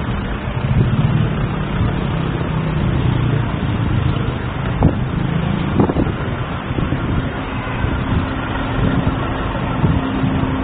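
Street traffic noise: a steady rumble of road vehicles, with two sharp knocks about five and six seconds in.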